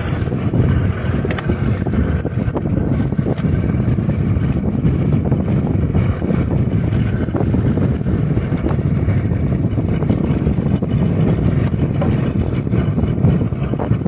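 A small boat under way: its motor runs steadily while wind buffets the microphone.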